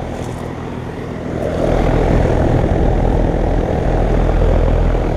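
A 2023 Lennox Merit ML17XC1 central air conditioner's outdoor unit running in cooling mode: a steady low hum from its Copeland scroll compressor under the rushing air of the condenser fan. It grows louder about a second and a half in and then holds steady.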